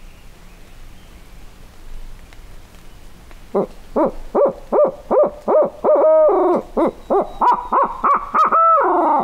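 A turkey hunter's barred owl hoot, used as a locator call to shock a roosted gobbler into gobbling. A fast run of hoots starts about three and a half seconds in, then longer held hoots, and it ends in a drawn-out falling note.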